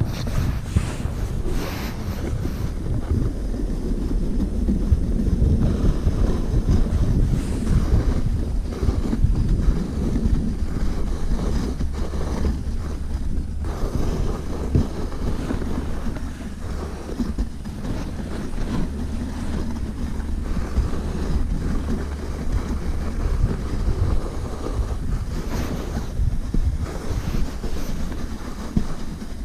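Wind buffeting the camera microphone during a fast toboggan descent, mixed with the steady hiss and scrape of the sled's metal runners on packed snow. Scattered short knocks and rattles come from the sled going over bumps.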